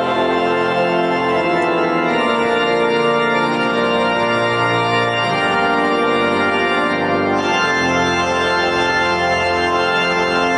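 Church organ playing full sustained chords that change every second or two.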